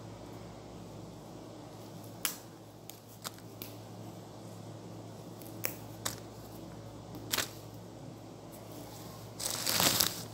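Fresh mint sprigs handled by hand while being cleaned: a few sharp snaps and clicks as stems and weeds are picked out, then a louder rustle of leaves brushing close by near the end, over a steady low hum.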